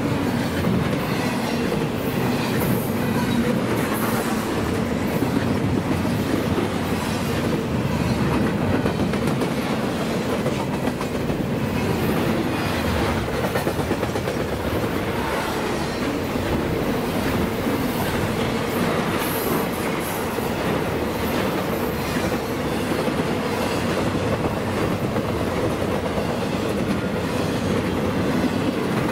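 Intermodal freight train of double-stack container and trailer cars rolling by, its steel wheels clattering over the rail joints in a steady, unbroken run of clicks and rumble.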